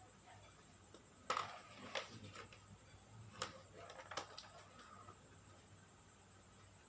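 Faint sharp clicks and taps from handling a laptop, about six of them over three seconds, the first the loudest, over a low steady hum.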